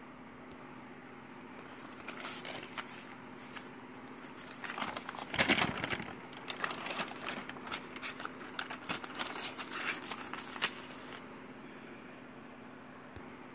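Paper pages of a handmade junk journal being turned and handled, rustling and crinkling from about two seconds in until near the end, loudest around the middle.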